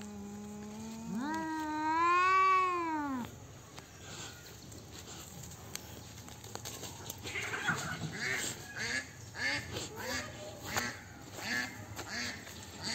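Cats yowling in a fight standoff: a low drawn-out growling yowl that stops about a second in, then one long yowl that rises and falls in pitch. In the second half comes a run of short, quick, repeated sounds about twice a second.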